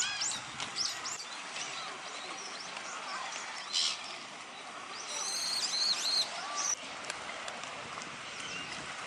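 Small songbirds chirping: a quick run of high calls at the start and a denser cluster about five to six and a half seconds in, over steady background noise.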